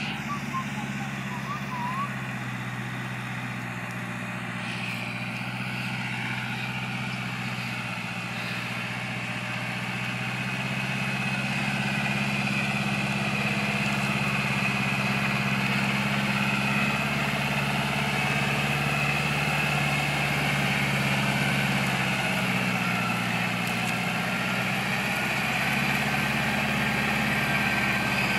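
Massey Ferguson tractor's diesel engine running steadily under load while ploughing, getting somewhat louder about ten seconds in.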